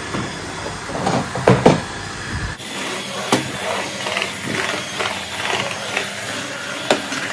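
Cordless wet-and-dry washing vacuum running as its floor head is pushed over a tiled floor, vacuuming and wet-mopping at once. Its steady running sound changes abruptly about two and a half seconds in, and two short knocks come later.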